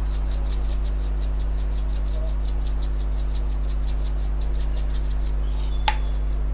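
Chilli flakes shaken from a spice jar's shaker cap onto a roti: a fast, even rattle of about seven shakes a second that stops near the end, then a single click. A steady low hum runs underneath.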